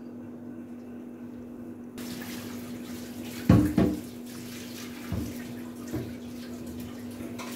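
Stuffed kachoris deep-frying in ghee in an iron karahi on a low flame, the oil bubbling and sizzling around them, with a steady low hum underneath. The sizzle gets suddenly louder and brighter about two seconds in, and two brief louder noises come a second and a half later.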